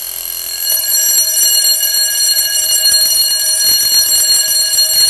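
12 V DC electric alarm bell ringing continuously, switched on through a wall clock's relay output, a sign that the relay wiring is correct. It is a steady, bright ring that grows a little louder about a second in.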